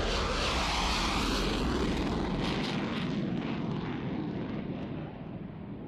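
Fighter jet passing overhead: a loud jet roar that peaks in the first couple of seconds and then fades steadily as the aircraft flies away.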